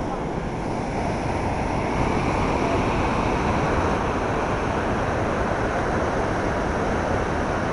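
Water rushing over a dam and churning below it, a steady, loud noise that grows slightly louder about two seconds in.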